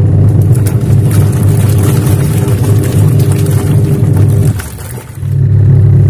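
Polytron twin-tub washing machine's wash tub running a load in soapy water: the motor hums steadily and the water churns. The hum drops away briefly about four and a half seconds in, as the pulsator changes direction, then starts again.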